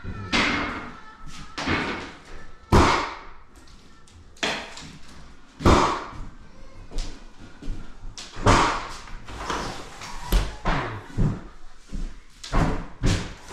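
A series of heavy bangs and thuds at irregular intervals, about a dozen in all, each with a short ringing tail.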